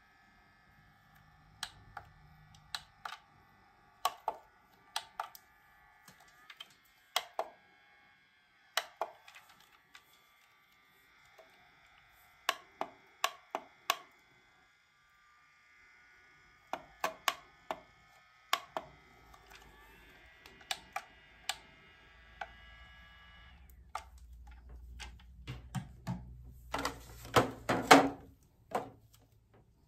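Handheld IPL hair-removal device being operated: sharp plastic button clicks, often in quick pairs, over a faint steady high electronic whine that stops about three-quarters of the way through. Near the end come handling rustle and knocks as the device is moved over the sink, the loudest knock just before the end.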